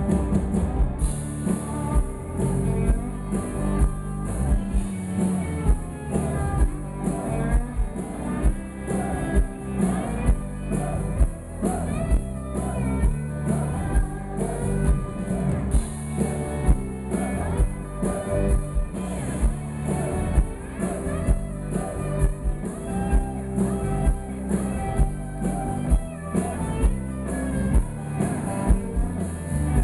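Live rock band playing: acoustic and electric guitars, bass, drums and keyboard, with a steady beat.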